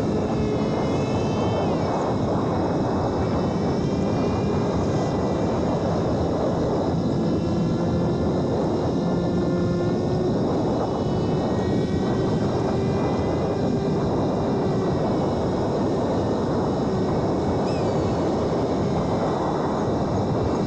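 Electric radio-controlled foam glider in flight: the brushless motor and propeller whine, rising and falling slowly in pitch with the throttle, over a steady rushing noise.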